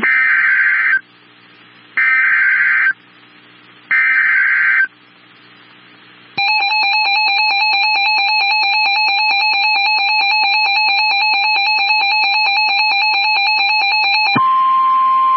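Emergency Alert System activation for a severe thunderstorm warning. Three short bursts of screechy digital header data, each about a second long with a second's gap, then about eight seconds of the harsh two-tone attention signal, then a single steady tone near the end.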